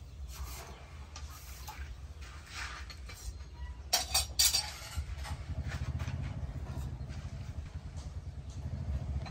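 Light metallic clinks and taps as a forged steel axe head is turned over in the hands, with a short cluster of sharper clinks about four seconds in. Underneath is a steady low rumble that grows louder in the second half.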